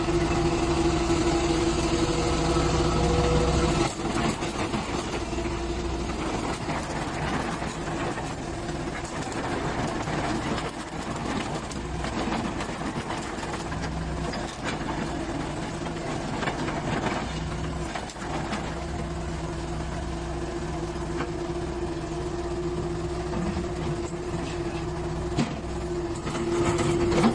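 Komatsu PC128US excavator's four-cylinder S4D102E diesel engine running steadily, with a steady tone over the engine note. It is louder for the first four seconds, drops lower, and rises again near the end, with occasional light knocks.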